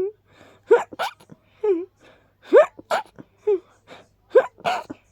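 A run of little sneezes in quick succession: short voiced gasps rising in pitch, each followed by a sharp sneeze, about three sneezes in all.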